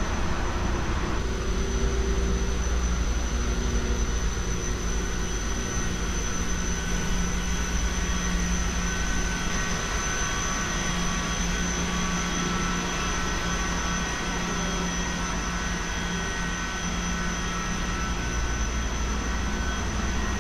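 Steady drone of running machinery in a cruise ship's engine-room spaces: a strong low hum under a wash of mechanical noise, with a steady high whine over it.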